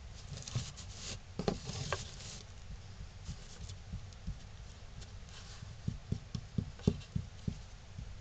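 Hands handling and rubbing glued wooden cut-out pieces over newspaper: a soft rustle and scraping in the first few seconds, then a run of light knocks as wood is set down and tapped against wood.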